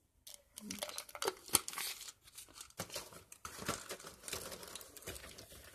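Crinkly medicine packaging being handled and rustled: a dense run of crackles, with one sharper snap about a second and a half in.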